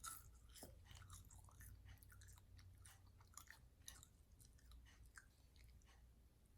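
Faint crunchy chewing of deep-fried crickets: many small irregular crunches and clicks.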